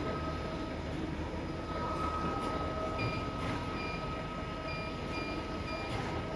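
GD-200E automatic circular saw blade sharpening machine running: a steady mechanical hum with a constant mid-pitched whine. About five short, high chirps come in the second half.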